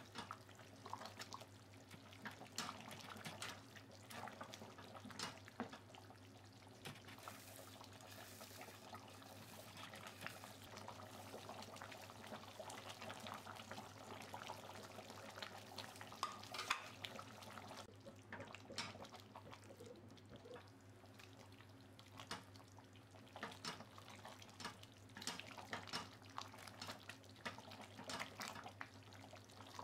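Thick chicken curry being stirred with a spatula in a pot: irregular wet sloshing with light knocks and scrapes of the spatula, sparser for a stretch in the middle, over a low steady hum.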